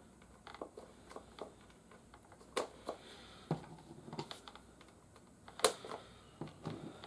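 Small plastic drill pieces being handled and fitted onto a Teenage Mutant Ninja Turtles Mutant Module toy vehicle: irregular light plastic clicks and taps, with one sharper click near the end.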